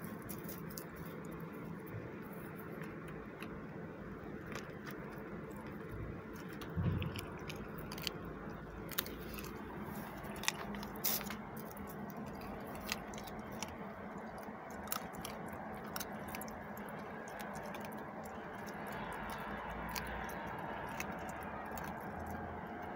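Dog eating meat scraps: scattered short crunches and wet chewing clicks over a steady background hiss, thickest about a third of the way in.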